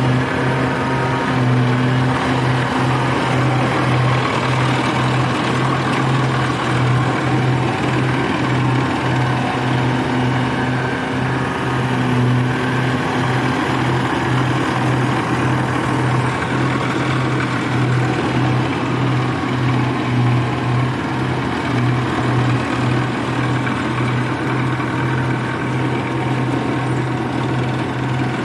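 Engine of a small rice-harvesting machine running steadily, a loud low hum with a fast, even pulse.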